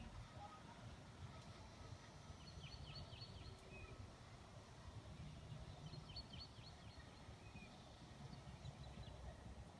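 Quiet outdoor ambience with a faint low rumble, and a small bird singing two short, rapid chirping phrases about three seconds apart.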